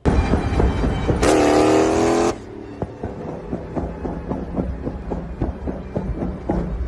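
Dodge Challenger's engine and exhaust revving loudly for about two seconds, the pitch climbing. It then drops to a lumpy idle, with a rapid, irregular string of exhaust pops and crackles over the rumble.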